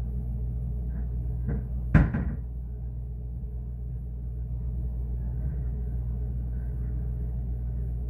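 Steady low hum of a refrigerator running, picked up from inside the closed fridge. About two seconds in comes a single sharp thud, like a door or cupboard shutting, heard muffled.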